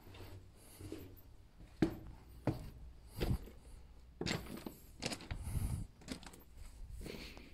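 Footsteps crunching on a path of loose limestone rubble, one step roughly every three quarters of a second, starting about two seconds in.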